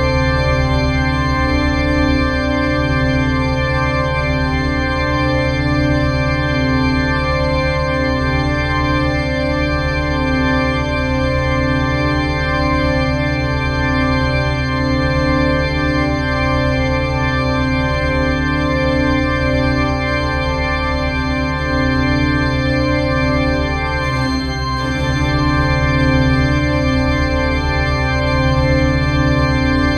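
TCL-200 river warning siren sounding one steady, held chord-like tone with no rise or fall in pitch. It dips and wavers briefly about 24 seconds in, then carries on as before.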